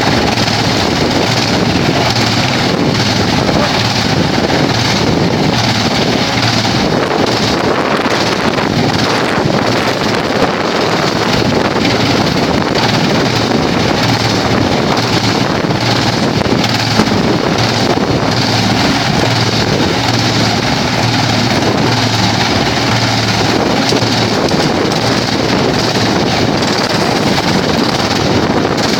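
Vantec PTF600x300/450mm forestry wood chipper running steadily with a loud, even mechanical noise and a low hum.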